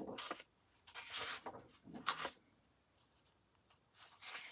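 Large sheets of 12x12 scrapbook paper being turned and slid over one another by hand. There are soft rustles in the first two and a half seconds, a short silence, then another rustle near the end.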